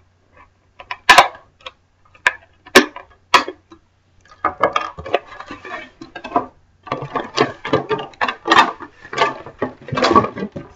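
Handling of an RC buggy's packaging: four sharp clicks in the first few seconds, as the zip ties holding the buggy down are cut, then several seconds of crackling plastic and clattering as the buggy is worked free.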